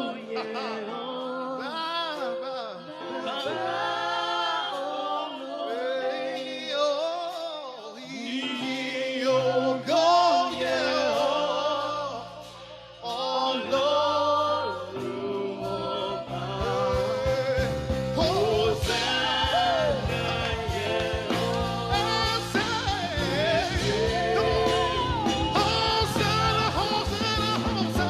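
Gospel worship music: a worship leader singing long, bending, wavering lines over held keyboard chords. About halfway through, the band's bass and drums come in under the voice and the sound grows fuller.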